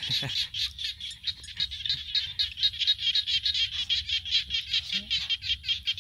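A dense chorus of frogs calling, a rapid run of high-pitched pulses at about ten a second without let-up.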